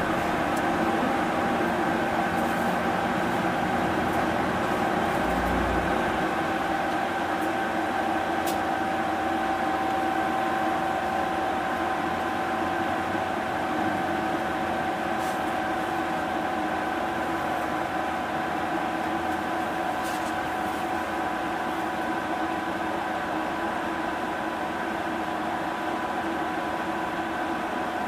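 Cabin sound of a Mitsubishi Fuso Aero Star city bus (2PG-MP38FK): a steady drone with a few held tones that sag slightly in pitch, and faint clicks and rattles.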